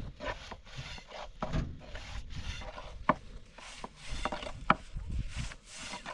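Thin wooden rolling pin rolling flatbread dough across a round wooden board: repeated rubbing, scraping strokes. There are two sharp wooden clicks, one about three seconds in and one near five seconds.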